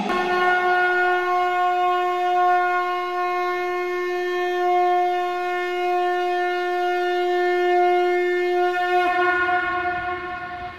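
Conch shell (shankh) blown in one long steady note, rich in overtones. It wavers in pitch about nine seconds in, then fades out.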